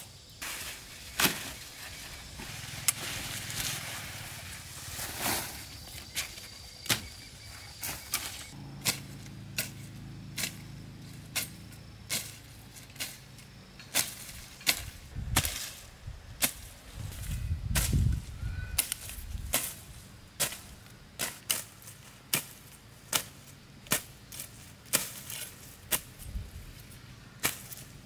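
Sharp knocks or snaps repeating unevenly, about one a second, over outdoor background noise, with a low rumble swelling twice in the middle.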